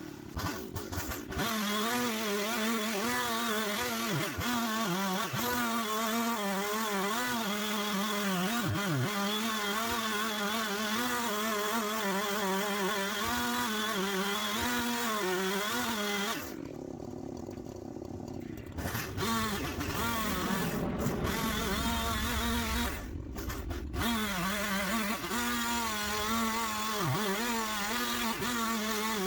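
Husqvarna 371 XP two-stroke chainsaw running, its engine pitch wavering up and down. It drops quieter for about two seconds a little past the middle, then picks up again.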